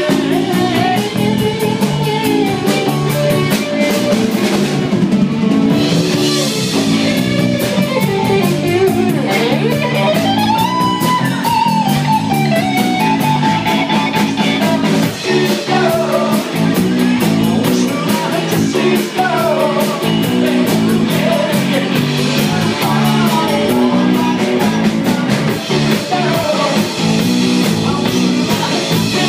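Live rock band playing: electric guitars over a drum kit keeping a steady beat, with melody lines bending up and down in pitch.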